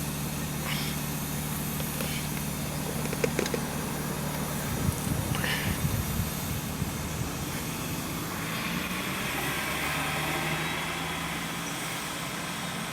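Vehicle engine idling with a steady low hum and a few small clicks. From about eight seconds in, the hiss of passing traffic swells and then fades.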